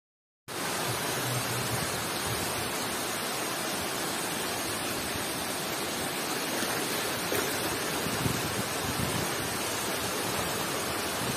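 Floodwater of the swollen Wardha river rushing across a road: a steady, even rushing noise that cuts in abruptly about half a second in.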